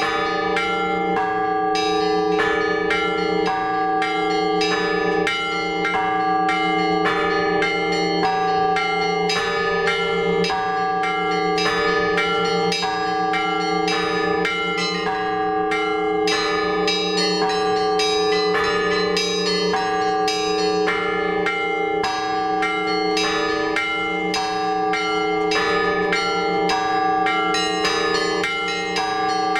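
Orthodox church bells rung by a bell ringer from the bell tower: quick, repeated strokes of the small bells, several a second, over the long sustained ring of larger bells, continuing without a break.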